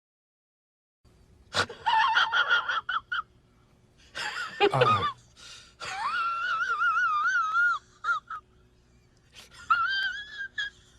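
High-pitched, voice-like sound effect: a few short breathy squeaks, then a long wavering high squeal about six seconds in and a shorter one near the end.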